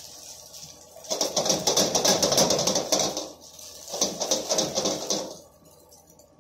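Plastic spatula scraping and tapping rapidly against a wok as noodles are tossed and stirred, over the sizzle of the hot pan. It comes in two bursts, about a second in and again about four seconds in, then dies down near the end.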